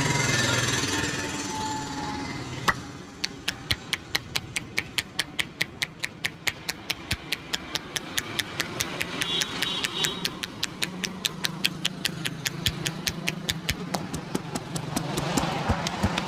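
Rapid, even hand tapping of a head massage, the barber's hands striking the head at about five strokes a second, beginning after a single sharp click about three seconds in. A low hum of street traffic runs underneath.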